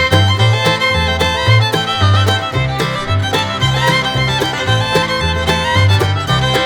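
Background music: an upbeat bluegrass tune with fiddle over a steady bass beat.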